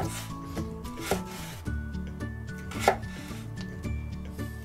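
Chef's knife cutting carrots into thin strips on a wooden cutting board: three sharp knocks of the blade on the board, at the start, about a second in and near three seconds in.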